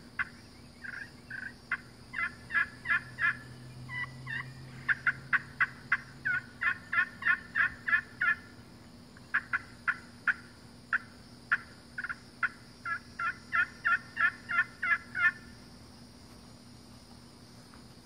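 Walnut slate friction turkey call (Lonnie Mabry) worked with a striker, sounding runs of hen yelps: short series of quick notes, some long fast strings, with a few single notes between. The calling stops a few seconds before the end.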